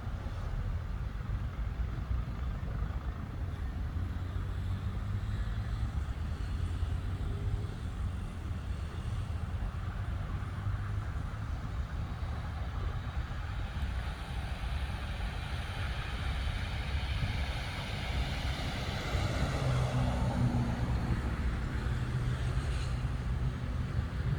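Steady low rumble of road traffic. One vehicle passes by, louder around twenty seconds in.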